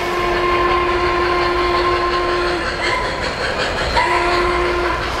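O-scale model train's sound-system horn blowing one long blast, then a short one about four seconds in, over the clatter of the cars' wheels on the three-rail track.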